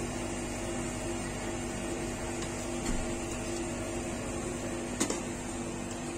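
Steady hum of a rolled-ice-cream cold-plate machine, with metal spatulas scraping and tapping ice cream across the frozen plate; a sharp knock of metal on the plate about five seconds in.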